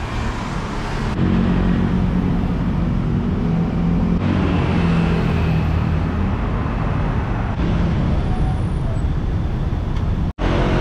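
City street traffic: a steady wash of passing vehicles, with a vehicle engine's low hum strongest through the first half. The sound drops out for an instant near the end.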